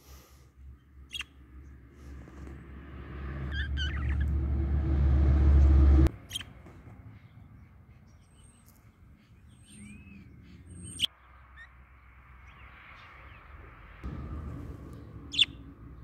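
Budgerigars giving short, scattered chirps and a few thin whistles. Under them a low rumble builds for a few seconds and cuts off suddenly about six seconds in.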